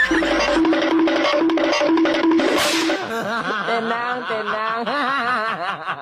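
Music: a short held note repeated about twice a second, giving way about three seconds in to a wavering melody.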